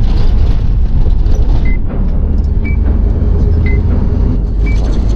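Steady low rumble of a moving passenger bus, heard from inside the cabin. A short high beep sounds about once a second from the second second on.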